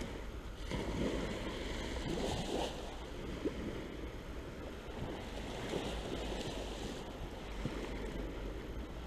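Gentle surf washing on a sandy shore, steady, with a low rumble of wind on the microphone.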